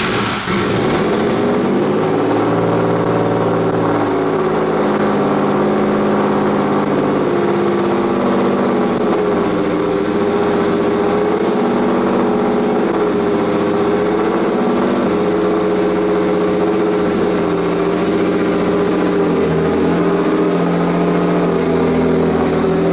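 A turbocharged Nissan S15 Silvia's engine fires up with a loud rush and settles into a steady idle. The idle note wavers and steps up and down in pitch.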